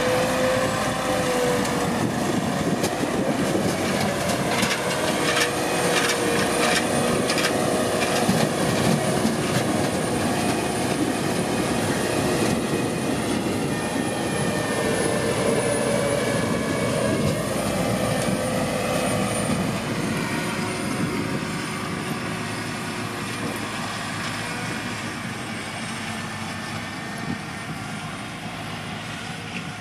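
Heavy diesel farm machinery running steadily, with a whine that wavers in pitch over the engine noise. It eases off a little over the last third.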